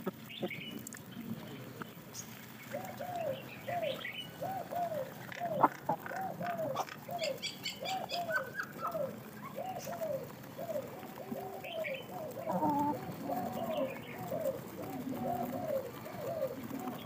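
Chickens clucking while they feed: a long run of short, arching clucks, one after another, starting a few seconds in, with higher chirps now and then and one sharp knock about five and a half seconds in.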